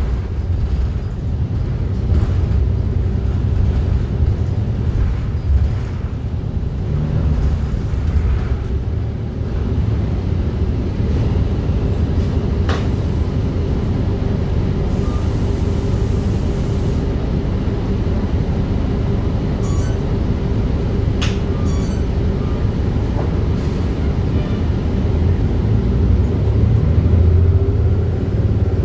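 Inside a city transit bus under way: the steady rumble of the engine and road, with a few sharp rattles and a brief hiss of air near the middle.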